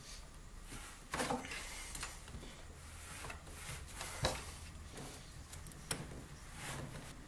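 Faint handling noises from work in a snowmobile engine bay, with a few light clicks and knocks, the sharpest about four seconds in.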